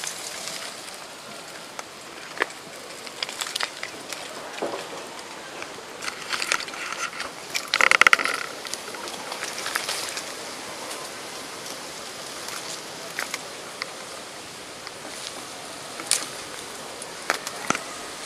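Tamarind leaves and twigs rustling and snapping, with scattered sharp cracks. A short loud call about halfway through.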